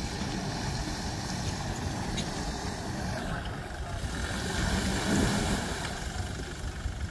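Four-wheel-drive pickup truck's engine running as it tries to drive out of a river, its front wheel churning the water, growing louder about five seconds in.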